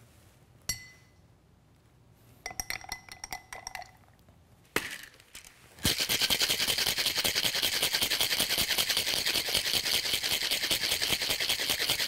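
Ice clinking into a cocktail shaker, a knock as the shaker is closed, then the shaker shaken hard: ice rattling fast and steadily through the second half.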